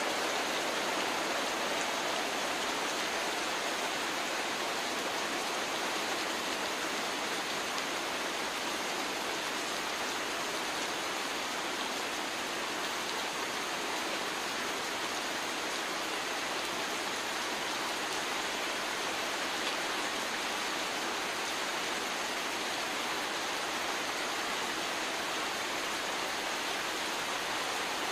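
Heavy rain pouring down steadily on leaves and river water, an even, unbroken hiss.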